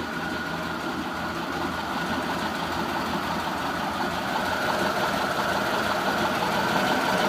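Porsche 914's fuel-injected, air-cooled flat-four engine idling steadily while warming up. The idle is holding well at this stage.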